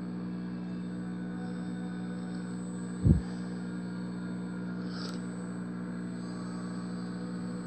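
Steady electrical hum from a television showing a blank VCR blue screen, with a thin high whine over it. A single low thump about three seconds in.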